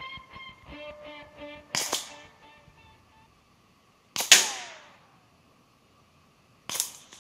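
Three sharp cracks about two and a half seconds apart: .22 LR bullets from a suppressed Ruger 22/45 striking scrap appliance metal, the loudest, middle one followed by a falling ricochet whine. Background guitar music fades out during the first three seconds.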